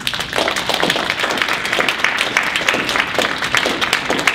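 An audience bursts into loud applause, many hands clapping at once.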